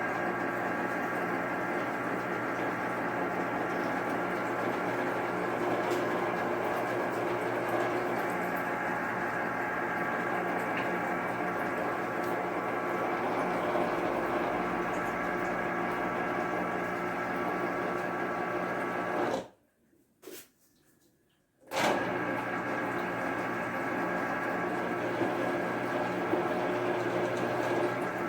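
Electric citrus juicer's motor running steadily as oranges are pressed on it; it cuts out for about two seconds near the end, then starts again.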